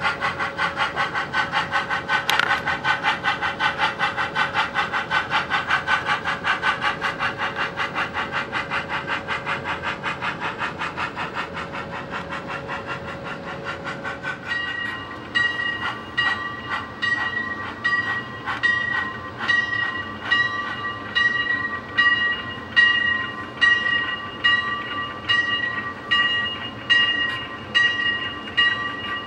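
Model steam locomotive's onboard sound system: quick, even exhaust chuffs with a steady hum beneath, easing off and growing quieter. About halfway through the chuffing gives way to the locomotive bell ringing about once a second.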